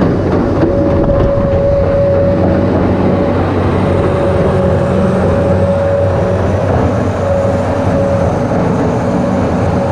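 Engine of farm machinery running steadily, with a steady whine that comes and goes.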